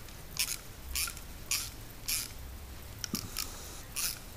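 Small hand ratchet clicking in short strokes, about two a second, as the bolts of a clamp-on line tap valve are tightened onto a refrigerator's copper refrigerant line.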